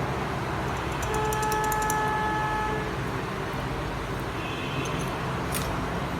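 Steady street traffic noise with a car horn sounding once, held for about two seconds about a second in; a few faint small clicks.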